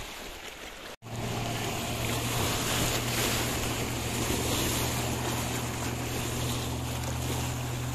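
Speedboat engine running at a steady pitch as the boat crosses the lake, with wind on the microphone and small waves washing on the shore. The sound drops out briefly about a second in.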